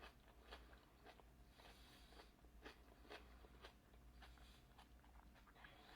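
Faint, close-up chewing with soft, irregular mouth clicks.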